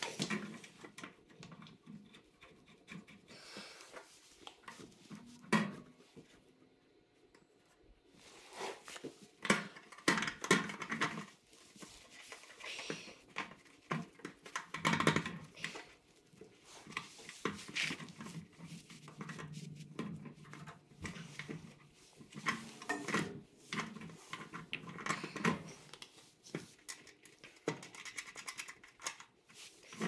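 Handling noise from fitting a gas water heater's new burner assembly and thermocouple: scattered clicks, taps and light metal knocks as the parts are worked into the burner compartment, with a quieter pause about a quarter of the way through.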